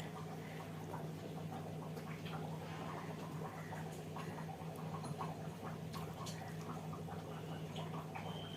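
A person eating a meal of rice, dal and kheer: close, irregular wet chewing, smacking and slurping sounds, over a steady low hum.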